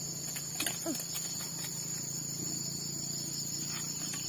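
Steady high-pitched chirring of insects in grass, with a few faint taps and clicks about a second in.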